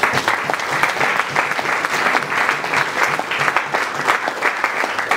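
Audience in a hall applauding: a steady round of clapping from many hands.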